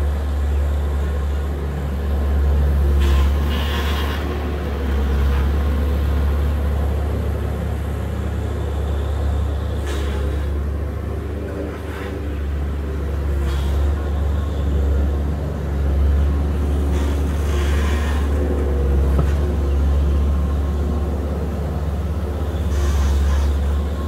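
Diesel engine of a compact earthmoving machine running steadily with a deep, constant hum, with a handful of brief, sharper noises over it at intervals.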